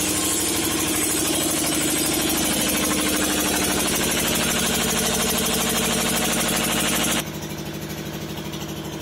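Engine of a sewer suction and jetting machine running steadily with a fast, even chug. About seven seconds in it suddenly becomes quieter and duller.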